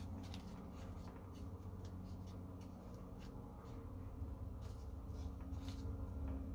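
Soft, scattered scratching and rustling of hands pressing potting soil around a seedling in a small pot, over a low steady hum.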